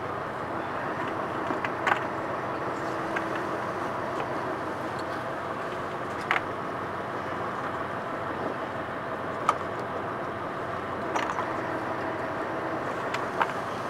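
Lifeboat engine running steadily as the boat stands by, a continuous even hum. A few short sharp clicks and knocks are scattered through it.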